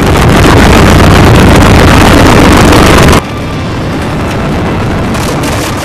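Fiat S76's 28.5-litre four-cylinder engine running loudly as the car drives. The sound drops suddenly to a lower level a little over three seconds in and carries on steadily.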